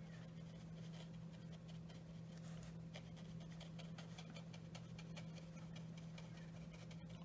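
Light, irregular taps and scratches of a watercolour brush dabbing paint onto paper to stipple shrubs, over a steady low electrical hum.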